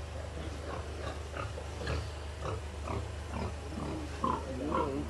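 Duroc pigs grunting in a pen: a string of short grunts, several a second, getting louder near the end, over a steady low hum.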